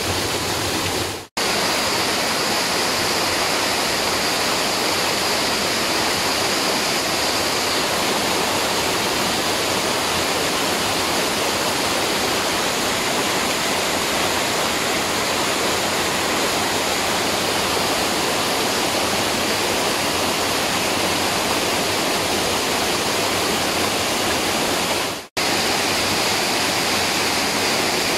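Waterfall pouring: a loud, steady rush of falling water that cuts out abruptly for an instant twice, about a second in and again near the end.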